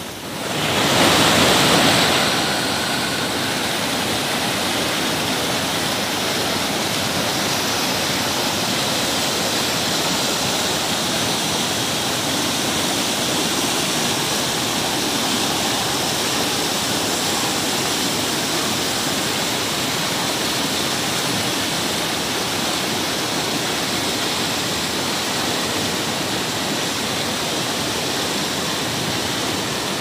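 Fast mountain river rushing over boulders in white-water rapids, a steady loud churning. It swells louder for the first couple of seconds, then holds even.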